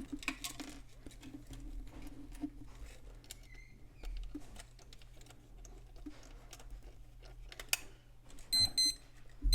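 Faint clicks and handling noise from the opened flip clock, then near the end its alarm buzzer starts: a quick double beep, high-pitched and electronic.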